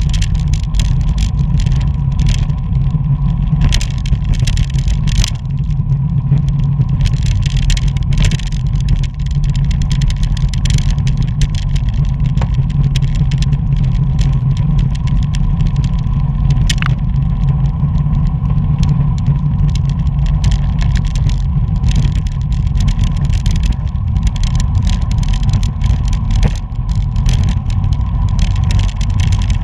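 Wind and road noise on a bicycle-mounted camera riding at race speed in a pack: a steady low rumble with many small clicks and rattles.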